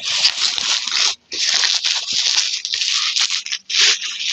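Plastic packaging and bubble wrap being cut and torn open and crinkled by hand. The rustling comes in long stretches with brief pauses.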